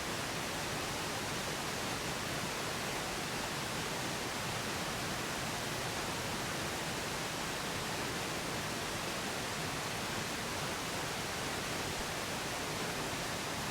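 Steady, unchanging pink noise, laid over a subliminal affirmation looped beneath it.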